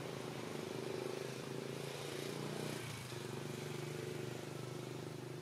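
Steady low hum of an engine running, with a brief dip about three seconds in.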